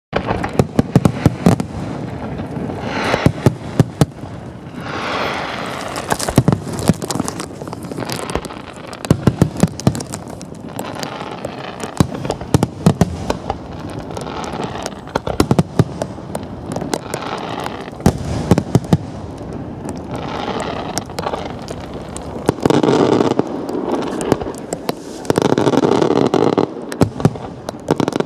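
Electronically fired fireworks and firecrackers going off in dense barrages: rapid crackling studded with sharp bangs, surging in waves every few seconds and loudest and most continuous near the end.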